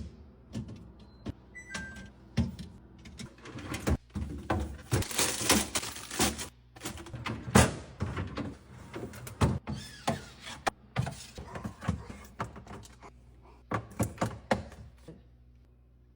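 Groceries being put away in a refrigerator: a run of irregular knocks and thunks as containers and packages are set on the shelves, with a stretch of packaging rustling about four to six seconds in. The handling stops about a second before the end.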